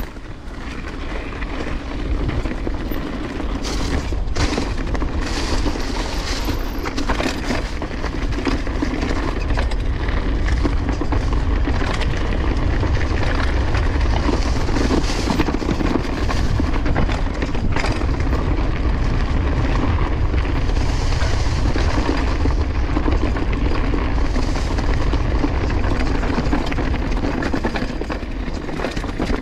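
Wind buffeting the action-camera microphone as a Banshee Legend downhill mountain bike rolls down a dirt trail, with tyre noise and many knocks and rattles from the bike over bumps. The chain still rattles a bit.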